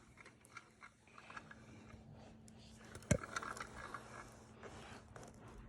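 Handling noises of plastic toy farm machinery: small clicks, rattles and scrapes, with one sharp knock about three seconds in, over a faint steady hum.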